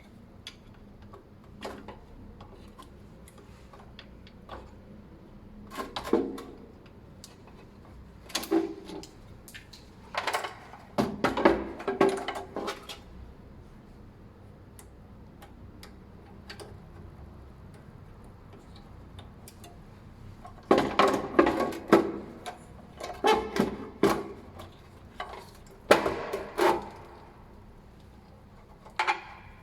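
Hands handling small hard parts and wiring at a fire alarm panel: irregular clusters of clicks, knocks and rattles, one stretch about a fifth to two-fifths of the way in and another, louder, about two-thirds through.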